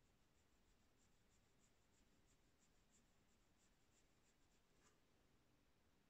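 Near silence, with faint, irregular light scratches of a fine paintbrush touching watercolour paper.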